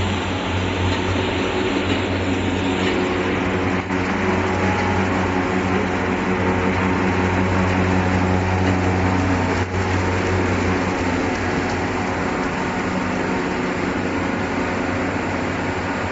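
Soap-making machinery running: the electric drives of a soap mixer and plodder give a steady low hum over a constant mechanical rumble.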